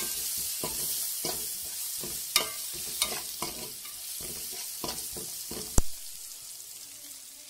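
Onions and whole biryani spices frying in oil in a metal pot: a steady sizzle that dies down towards the end, with a spoon scraping and knocking on the pot as the masala is stirred, and one sharp clank a little before six seconds in.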